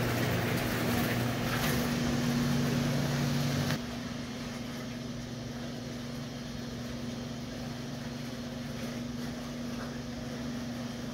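Jetted bathtub running, its pump motor giving a steady hum under the rush of the jets churning soapy water. A little under four seconds in the sound drops suddenly to a quieter, more distant hum of the same pump.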